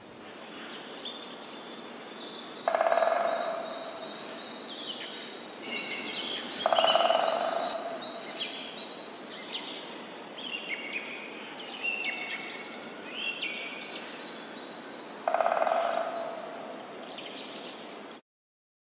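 Several small birds chirping and singing, with three louder, lower calls of about a second each that fade away. The sound cuts off suddenly near the end.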